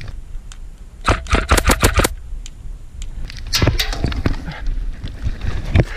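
Airsoft gun firing a rapid burst of about seven shots about a second in, then a few more single shots later, over low rumble from the moving head-mounted camera.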